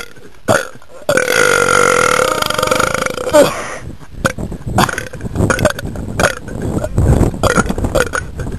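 A person belching on cue: one long, drawn-out belch of about two and a half seconds starting about a second in, then a run of short choppy bursts.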